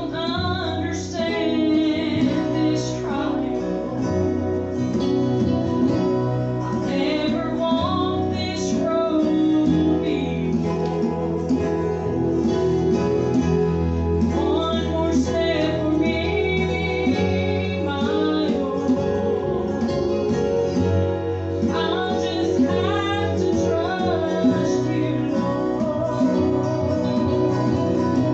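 Gospel group singing with acoustic guitar accompaniment, a woman's voice among the singers.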